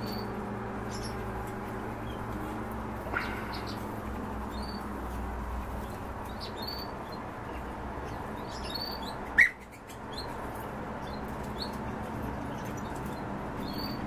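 Birds chirping in short, high notes scattered here and there, with a louder call about three seconds in and a loud, short call about nine and a half seconds in, over a steady low hum.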